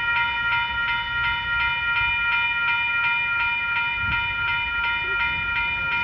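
Western-Cullen-Hayes electronic crossing bell (E-bell) ringing steadily, about three dings a second, each ding a bright ring of several tones.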